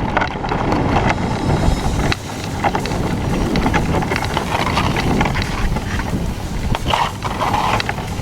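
Wind rumbling on the microphone over water noise as a sea kayak is paddled through floating river ice, with a few brief knocks.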